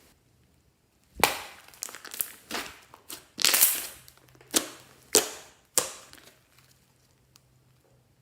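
Something being crushed by hand: a run of about eight sharp crackling crunches between about one and six seconds in, then quiet.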